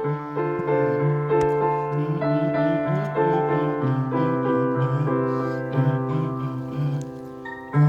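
Piano or electric keyboard playing sustained chords, an instrumental intro with no singing. There is a brief dip in loudness near the end before the playing comes back in.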